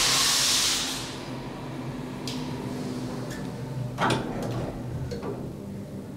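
Elevator car doors sliding shut over a low steady hum, with a burst of hiss at the start, a sharp clunk about four seconds in and a few light clicks.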